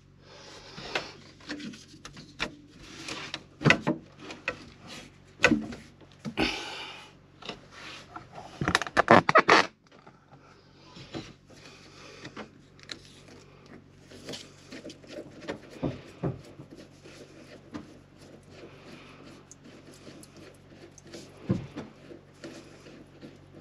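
Handling noises around a boat's raw-water strainer: scattered knocks, rubs and clicks, with a short burst of rattling about nine seconds in, then lighter clicks over a faint steady hum.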